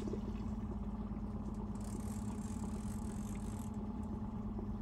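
Outboard motor running steadily at slow trolling speed, a low even hum, with a soft hiss for about two seconds in the middle.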